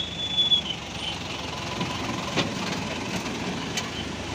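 A pickup truck's engine running as it drives close past, over the hum of motorbike traffic. A short high beep sounds right at the start, and there is a sharp knock about two and a half seconds in.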